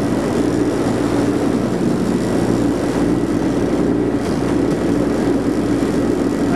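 Boat engine running steadily while the boat is under way, with the rush of wind and wake water over it.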